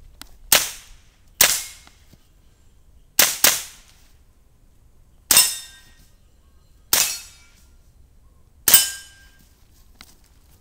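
Seven shots from a .22 rimfire IPSC mini rifle, each a sharp crack with a short decaying tail: two single shots, a quick pair about three seconds in, then three more single shots at a steady pace.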